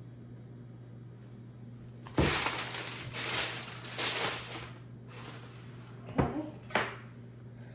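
Dishes and food being handled while a plate is filled: a knock about two seconds in, a few seconds of crinkling rustle, then two short knocks near the end, over a steady low hum.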